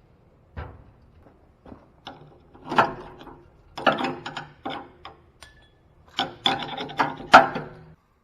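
Irregular clanks, knocks and scraping of metal parts and tools being handled, coming in several bursts, loudest in the last couple of seconds.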